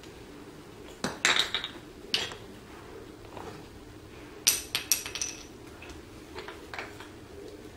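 Small wooden toy pieces clacking together and dropping onto a hardwood floor: a few sharp knocks about a second in, another shortly after two seconds, a quick cluster a little past four seconds, then a couple of softer taps.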